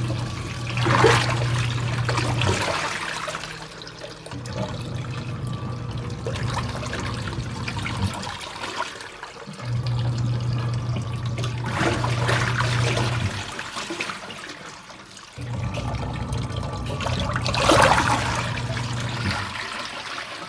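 Washing machine agitating on its wash cycle. The motor hums in runs of a few seconds, pausing between them as it reverses direction, and the water in the drum sloshes with loud surges about three times.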